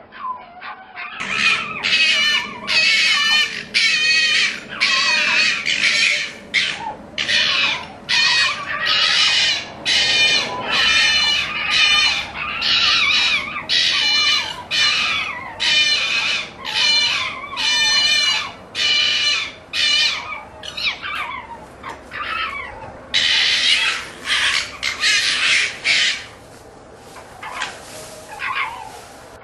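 A fox calling: a long run of short, harsh barking calls, about one to two a second, with one more call near the end after a short pause.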